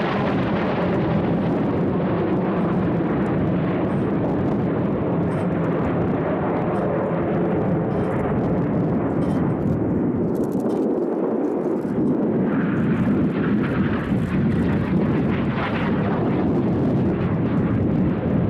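Aermacchi MB-339 jet trainers' single Viper turbojets flying past in formation: steady, loud jet noise. The deep rumble drops away briefly a little past halfway, then builds again as the jets come round.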